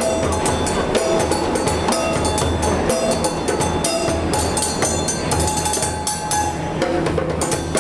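Hand percussion jam: a djembe played by hand under fast drumstick strikes on metal pots and pans, with a hand shaker, in a steady busy rhythm.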